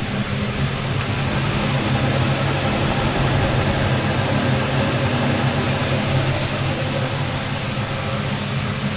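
A machine running steadily: a low, even hum under loud rushing noise.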